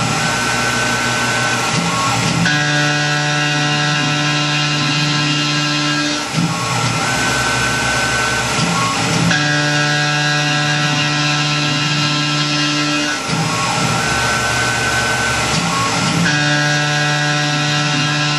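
Tormach PCNC 1100 CNC mill's spindle and end mill cutting aluminum stock in repeated passes. Steady stretches of about four seconds with a strong low hum alternate with shorter stretches of a thinner, higher tone between cuts.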